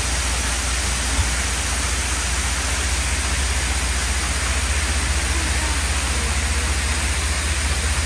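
Waterfall cascading down a steep rock face: a steady rushing hiss, with a constant low rumble underneath.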